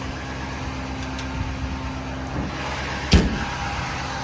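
Duramax V8 diesel idling steadily. About three seconds in, a single sharp bang as a metal door is shut.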